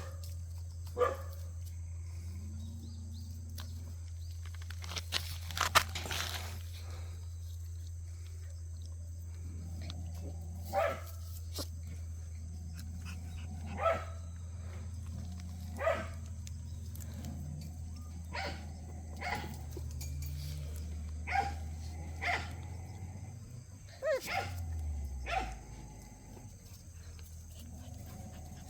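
Jindo puppies giving short barks and yips, scattered every second or few. Underneath runs a steady low hum that drops in pitch and fades near the end.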